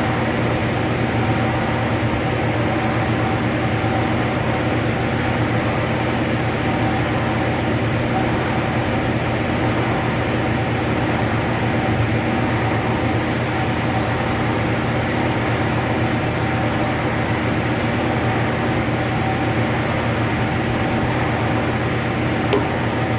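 Heavy-drum carpet spin-drying machine running at a steady speed, its electric motor giving an even mechanical hum with several steady tones.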